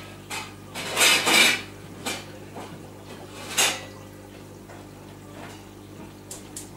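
Hard clinking and clattering, loudest in a cluster about a second in and again in a single clatter about three and a half seconds in, over a steady low hum.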